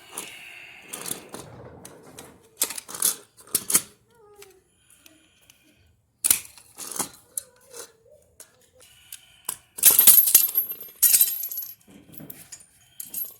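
Metal washer parts and tools being handled: a string of sharp clicks, clinks and knocks, some ringing briefly, with a louder clatter about ten seconds in.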